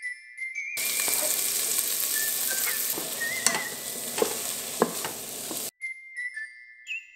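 Sliced onions sizzling in hot oil in the inner pot of an electric pressure cooker, stirred with a wooden spatula that taps the pot a few times. The sizzling starts about a second in and cuts off suddenly a little past halfway, leaving light chiming music.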